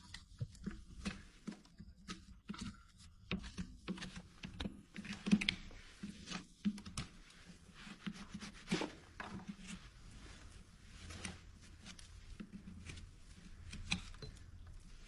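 Irregular clicks and short scraping strokes of hoof-trimming work, with a faint steady low hum beneath.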